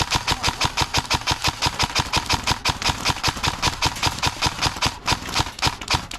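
Airsoft rifle firing a long, steady string of rapid shots, about eight a second.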